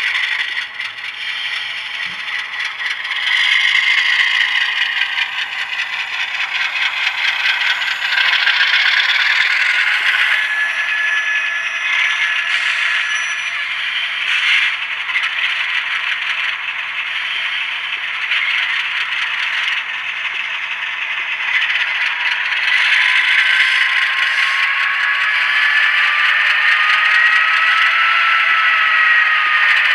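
Sound from the LokSound decoder of an HO scale Atlas RSD-5 model locomotive: a diesel engine sound played through the model's small speaker, thin and rattly with no bass. Near the end a whining tone rises and then falls.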